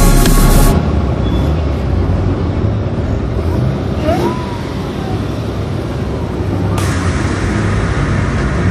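Cars driving slowly past one after another, with low engine rumble and tyre noise. A short whistle-like note rises and falls about four seconds in. A moment of electronic music cuts off at the very start.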